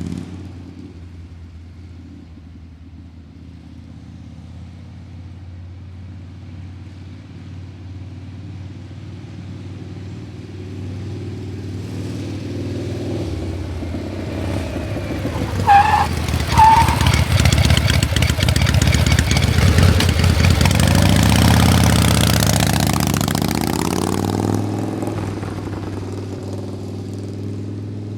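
A motor vehicle engine runs low and steady, then revs up through its gears and grows louder about halfway through, with two short high squeals just after the build begins. It peaks, then falls in pitch and fades.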